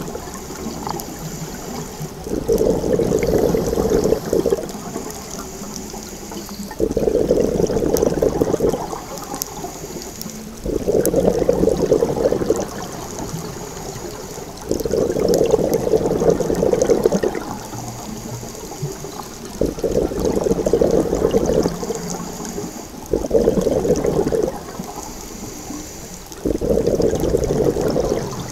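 A scuba diver breathing through a regulator underwater: a rush of exhaled bubbles about every four seconds, each lasting about two seconds, with a faint hiss of inhalation in between.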